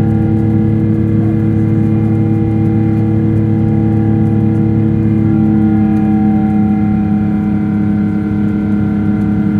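Boeing 777 cabin noise on descent: the jet engines and airflow make a loud, steady drone with several steady hum tones. The upper tones shift slightly higher about five and a half seconds in.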